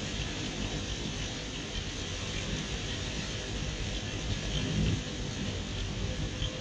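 Severe storm wind from a tornadic thunderstorm, a steady dense rushing noise with no distinct tones.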